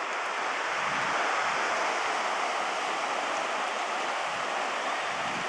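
Ocean surf washing steadily on a sand beach, an even hiss with no distinct wave breaks.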